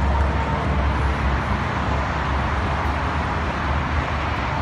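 Steady outdoor background noise with a constant low rumble and no distinct events.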